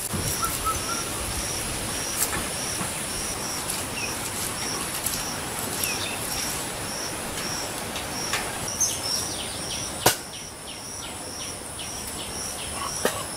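Onion and garlic being ground by hand into paste on a flat grinding stone (shil-pata), a rough scraping rub, over a steady high-pitched insect drone and a short high chirp repeated about twice a second. A single sharp knock about ten seconds in.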